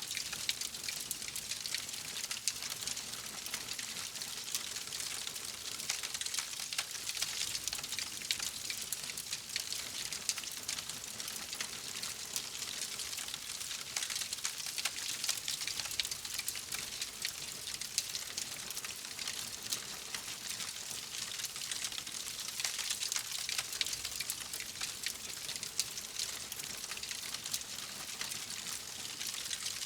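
Wood fire crackling: a dense, continuous run of small pops and snaps over a steady hiss.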